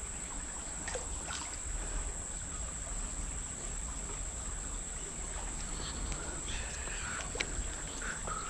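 Faint creek ambience: water trickling, with a thin steady high-pitched tone and a few light clicks.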